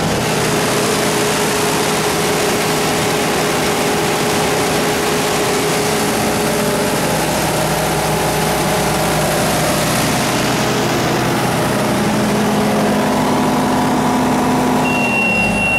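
Generac 60 kW diesel generator set running steadily with no load, its Mitsubishi 4D34-T turbocharged four-cylinder diesel engine held at 1800 rpm. Near the end a high steady beep starts, and the engine's pitch begins to fall.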